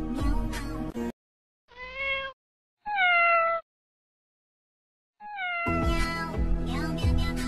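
A kitten meows three times, each meow short and falling slightly in pitch, in a silent break in the background music; the music, with a steady beat, cuts off about a second in and comes back in under the third meow.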